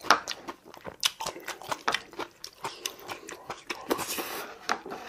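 A person chewing and crunching food close to the microphone, with many quick, irregular wet clicks and smacks of the mouth.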